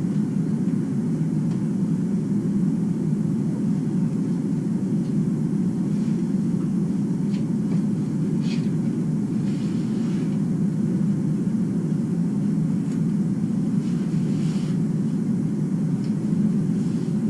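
A steady low rumble of background noise, with a few faint light ticks in the middle.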